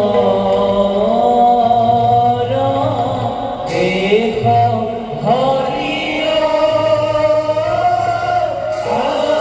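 Devotional chant-style singing: a voice holds long notes that glide in pitch, over musical accompaniment.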